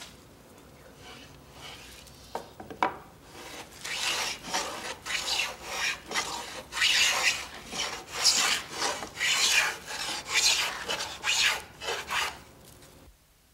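Japanese waki-ganna (grooving plane) shaving the side wall of a groove cut by a plow plane: a run of short, rasping strokes, about two a second, beginning a few seconds in and stopping shortly before the end. A couple of light knocks come just before the strokes start.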